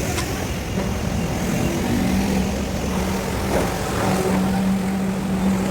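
Commercial high-pressure washer running: a steady machine hum with one strong low tone that settles in about a second in, over a constant noisy rush.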